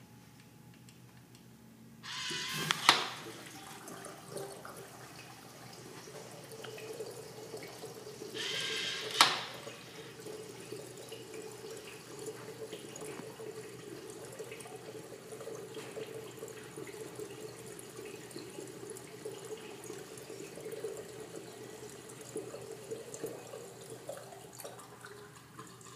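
Flush valve on a Crane Bedford urinal being flushed. Two short hissing surges, each ending in a sharp click about 3 and 9 seconds in, are followed by water rushing steadily through the valve into the bowl with a steady tone, until it shuts off near the end.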